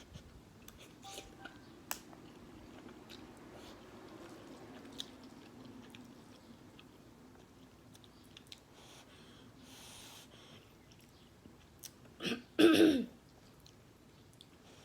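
Someone eating instant ramen: quiet chewing with small mouth clicks and smacks over a faint low hum. About twelve seconds in, a short loud two-part cough, the second part longer.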